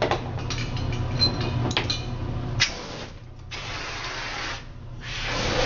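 Handheld fire extinguisher discharged in short bursts at burning aluminum: a brief hissing rush about two and a half seconds in, a longer one about a second later, and another starting near the end. A few sharp clicks and knocks come before the spraying.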